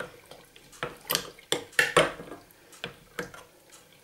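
A spoon stirring soaked plums in a large glass jar, knocking and scraping against the glass in irregular clinks that are loudest in the middle.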